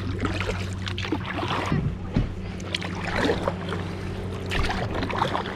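Kayak paddle dipping and splashing in lake water, with drips and small irregular splashes, over a steady low hum.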